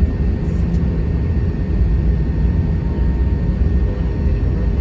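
Cabin noise inside an Airbus A321-211 airliner: the steady low rumble of its CFM56 jet engines and the airflow, with faint steady tones above it.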